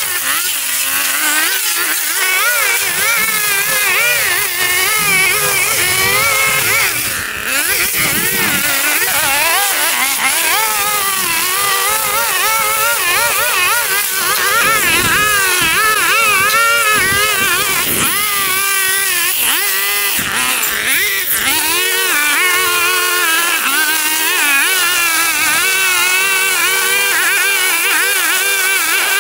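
Lawn mower engine running steadily while mowing, its pitch wavering up and down over and over.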